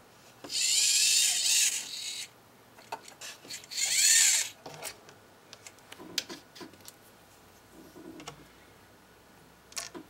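A servo's gear train whirring in two short bursts as its horn is turned by hand to the end of its range, followed by scattered small clicks of screws and parts being handled.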